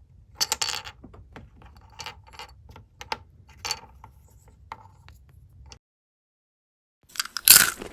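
Small plastic toys and miniature props being handled and set down: scattered clicks, taps and light scrapes. They stop abruptly, and after a brief silence a loud sneeze sound effect begins near the end.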